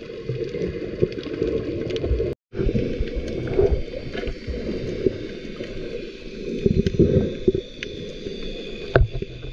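Muffled underwater water noise picked up while snorkelling, churning and low, with scattered clicks and knocks. It cuts out completely for a moment about two and a half seconds in.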